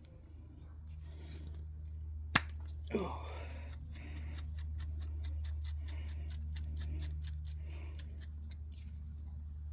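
Hand work on a small generator engine's parts: scattered light clicks and taps, with one sharper click about two and a half seconds in, over a steady low hum.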